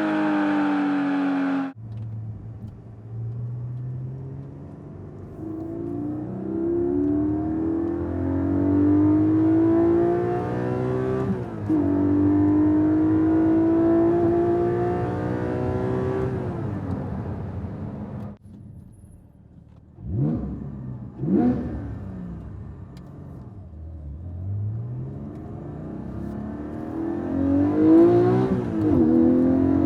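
Porsche 718 Cayman GT4's 4.0-litre flat-six under hard acceleration, heard from inside the cabin: revs climb steadily through the gears and drop at each upshift. After a brief quiet pause there are two quick throttle blips, then another rising pull.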